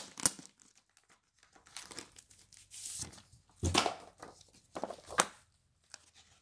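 A comic book being opened and handled by hand: paper rustling and crinkling in several short bursts, the loudest about four and five seconds in.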